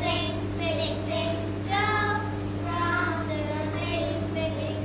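Children singing together, with held, sliding notes, over a steady low electrical hum.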